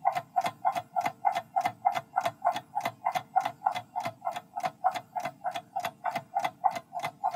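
Quiz countdown-timer sound effect: a fast, even clock-like ticking, about four ticks a second, marking the answer time.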